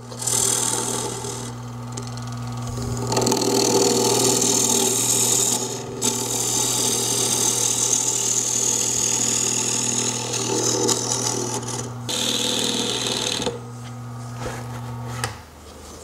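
Excelsior mini lathe running with a steady motor hum while a gouge takes scooping cuts inside a spinning green apple-wood bowl, the cutting hiss coming in several passes of a few seconds each. The hum stops near the end.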